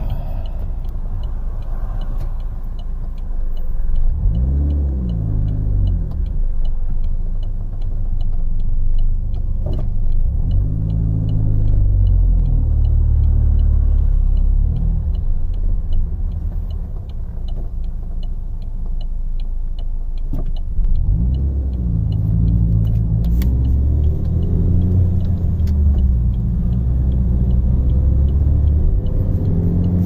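Cabin sound of a 2005 Saturn Ion's 2.2-litre four-cylinder pulling away and accelerating through the gears of its five-speed manual, the engine note rising three times over a steady road rumble. A turn signal ticks evenly, about three clicks a second, for roughly the first half.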